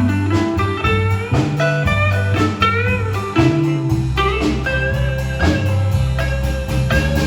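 Live band playing an instrumental break: a lead guitar plays bent, sliding notes over a steady low bass line and drum beat.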